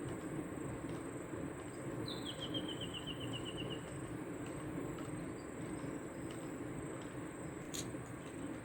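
A steady low rushing noise under a continuous high insect drone. About two seconds in, a bird gives a quick trill of about a dozen rapid notes, and there is a sharp click near the end.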